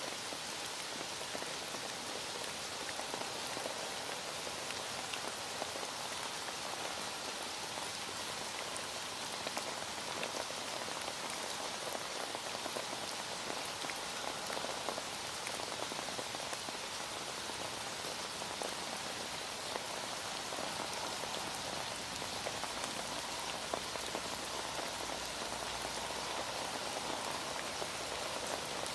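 Heavy rain falling steadily, a dense even hiss full of fine drop patter.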